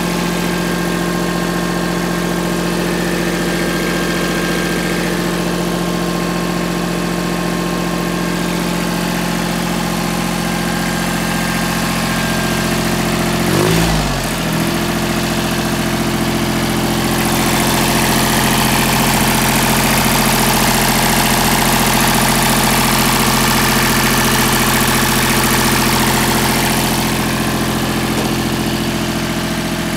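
Iseki 2160 compact tractor's diesel engine idling steadily. About 14 seconds in, its note dips briefly and settles again. It then runs a little louder for about ten seconds.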